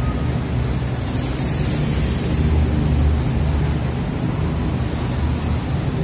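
Heavy diesel engine running steadily with a deep, even drone, over the hiss of road traffic that swells a little about two to three seconds in.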